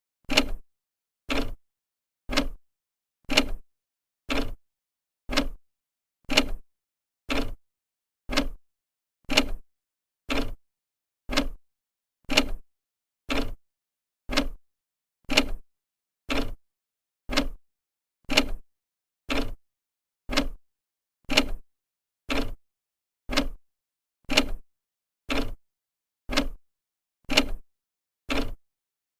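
An old clock ticking steadily, one sharp tick each second as the second hand steps.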